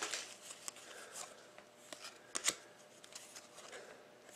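Panini Totally Certified hockey trading cards being slid and flipped through by hand: faint rustles of card stock with scattered light clicks, the sharpest about halfway through.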